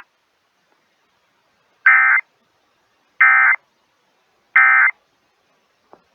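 Three short bursts of buzzy EAS/SAME digital data tones, about a second and a half apart: the end-of-message signal that closes a NOAA Weather Radio tornado warning.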